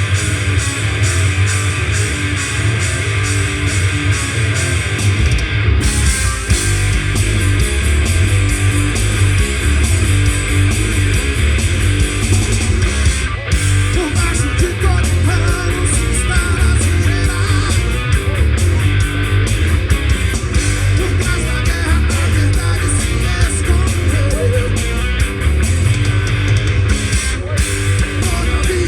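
Punk rock band playing live, loud and dense: distorted electric guitars strumming fast over bass and drums, with no vocals.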